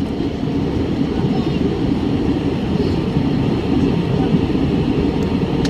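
Steady low rumble of an Airbus A320 in flight, engine and airflow noise heard inside the passenger cabin over the wing.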